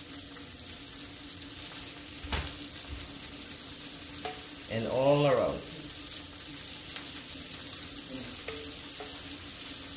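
Pan of hot sake sauce sizzling steadily as the sauce is spooned over the fish. A spoon clicks sharply once about two and a half seconds in, and a brief voice sounds about five seconds in.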